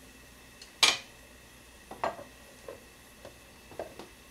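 Chopsticks and a stainless food-storage container knocking on a plate and kitchen counter: one sharp clack about a second in, then several lighter clicks and taps, over a faint steady hiss.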